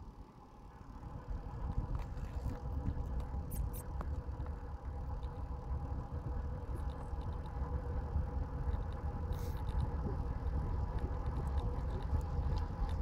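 Wind rumbling on the microphone together with road noise from riding along an asphalt road, building over the first couple of seconds and then holding steady, with a faint steady whine under it.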